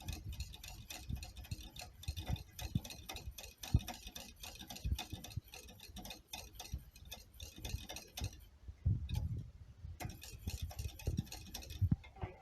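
A stirring utensil ticking, knocking and scraping against a pot in an irregular stream as lemon crème pâtissière is stirred over low heat while it thickens.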